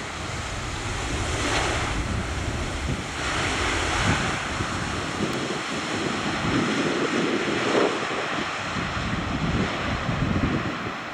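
Boeing 777-300ER's GE90 jet engines running loud on the landing roll, the noise swelling through the middle and easing near the end as reverse thrust slows the jet. Wind buffets the microphone throughout.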